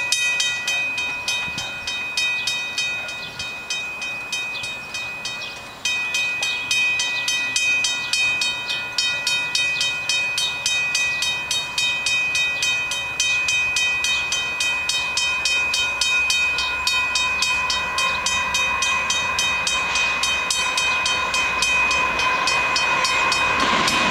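Railway level-crossing warning bell ringing, with rapid, evenly spaced strikes that warn of an approaching train. A rumble from the oncoming freight train grows near the end.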